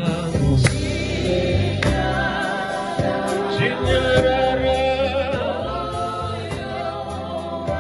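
A man singing a Shona gospel hymn into a microphone, backed by a live band with drum kit, cymbals and electric guitar playing along.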